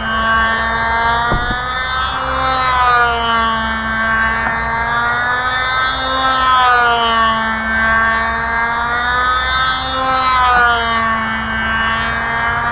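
Ringmaster control-line model airplane's small engine running flat out, its pitch rising and falling about every four seconds as the plane circles the pilot on its lines.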